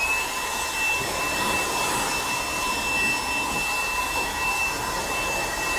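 Milwaukee M12 cordless spot blower running on its second speed, blowing sawdust out of a plastic tool chest: a steady rush of air with a high, even motor whine.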